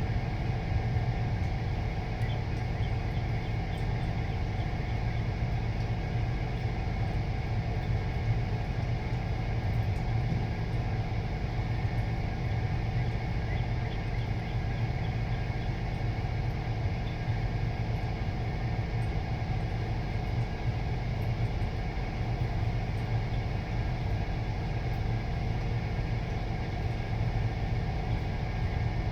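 Steady low mechanical hum that holds unchanged throughout, with faint, scattered high chirps from small birds above it.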